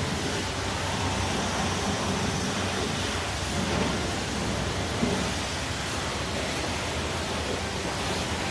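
Cartoon spray sound effect: a steady rushing hiss of a washing jet blasting a muddy monster truck clean.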